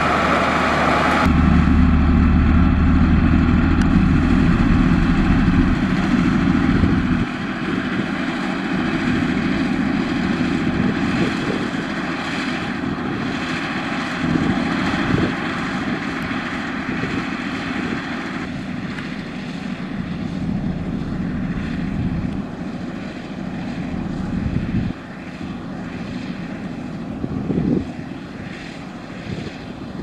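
Heavy diesel engines of road rollers and a motor grader running steadily, a continuous drone. A strong deep rumble drops away about seven seconds in, leaving a lighter engine drone that shifts in level a few more times.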